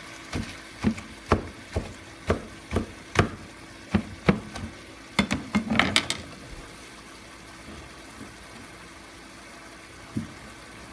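Chicken breast frying in butter in a skillet with a low sizzle, while a cooking utensil knocks and clicks against the pan about a dozen times, ending in a quick cluster of clacks about five to six seconds in. After that, mostly the steady sizzle with a knock or two.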